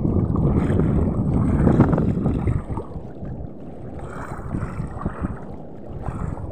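Wind buffeting the microphone in gusts, heaviest in the first two and a half seconds, then easing.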